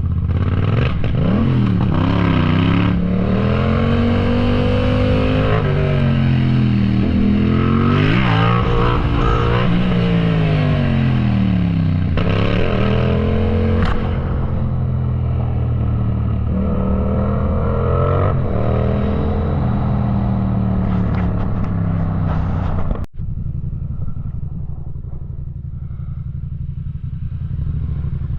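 Yamaha MT-07's parallel-twin engine under hard riding, its pitch climbing and dropping again and again as the throttle is opened and the gears change. From about 14 s in it runs lower and steadier, with a momentary cut about 23 s in.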